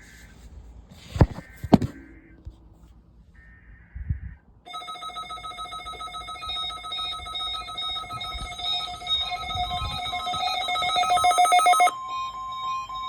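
Midland 74-210 weather radio going into alert. There are two sharp clicks and a short electronic beep, then from about a third of the way in a rapidly pulsing electronic alarm that grows steadily louder. Near the end this switches abruptly to a single steady tone near 1 kHz, the NOAA Weather Radio 1050 Hz alert tone.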